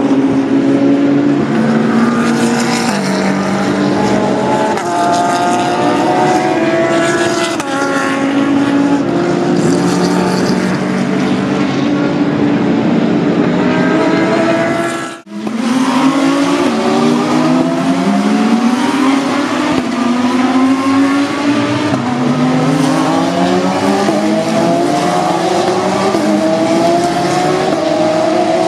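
GT3 race car engines running hard at trackside, their pitch stepping up and down with gear changes. About halfway there is a brief sharp drop-out, after which the engines climb repeatedly through the gears as they accelerate.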